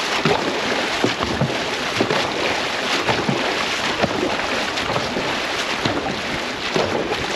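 Dragon boat paddles catching and pulling through the water with repeated splashes, over a steady rush of water and wind on the boat-mounted microphone.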